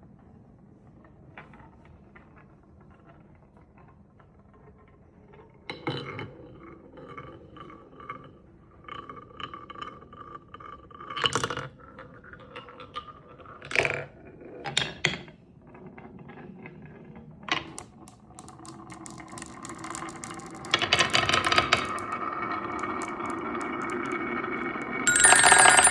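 Wooden marble run: marbles rolling and clattering down a wooden track, with scattered clicks and several sharp knocks, then a dense run of small clicks like falling dominoes and a louder steady rolling. A bright ringing chime sounds near the end.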